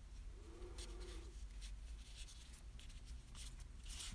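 Faint rustling and rubbing of cotton yarn being drawn through a crocheted piece while it is sewn by hand, with a few soft scratchy ticks.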